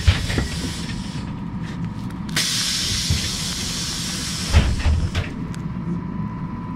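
Interior of a moving trolleybus: a steady low rumble from the running gear with a thin, steady high whine, twice overlaid by a rush of hiss lasting a second or two. A few dull thuds come right at the start and again about four and a half seconds in.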